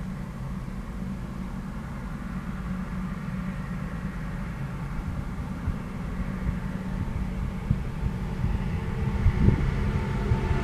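Heavy diesel engine running with a steady low drone that slowly grows louder, with a few low knocks near the end.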